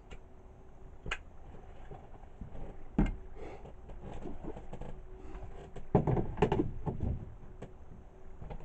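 Plywood cupboard doors being handled and pushed shut against a wooden cupboard frame: a few separate knocks, a sharp one about three seconds in, then a quick cluster of knocks around six to seven seconds in.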